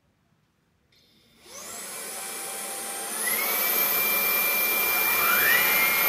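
VAX Blade 4 cordless stick vacuum starting up about a second and a half in, its motor running with a steady whine that steps up in pitch twice.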